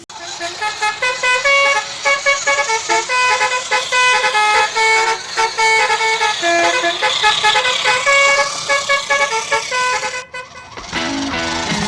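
A multi-tone musical vehicle horn playing a quick tune of short notes that step up and down. The tune stops about ten seconds in.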